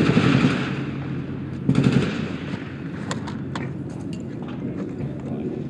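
Bursts of gunfire at the start and again near two seconds in, then scattered sharp cracks about three seconds in, over the steady hum and hiss of an old film soundtrack.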